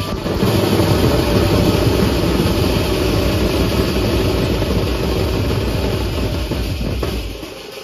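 Pad band drumming: shoulder-slung steel-shelled drums beaten fast with sticks under the wash of large hand cymbals, a loud, dense, driving rhythm that drops away sharply near the end.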